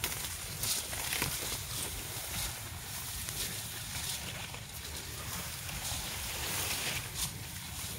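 Steady rain falling on leaves and water, with a few brief rustles and knocks.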